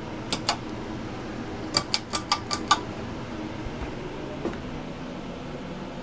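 Home Decorators Collection Windward 52-inch ceiling fan running with a steady hum. Its pull-chain switch is being worked: two sharp clicks just after the start, then a quick run of six clicks about two seconds in.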